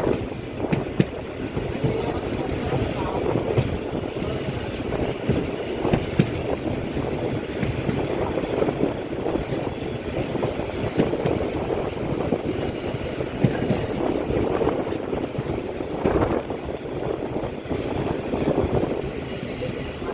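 Passenger express train running along the track, a steady rumble of wheels on rail broken by frequent irregular clacks.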